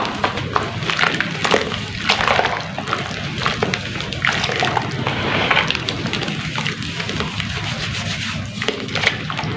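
Soft sand-and-cement chunks being crumbled and dipped into water: a continuous run of small crackles and crumbling with wet sloshing, over a low steady hum.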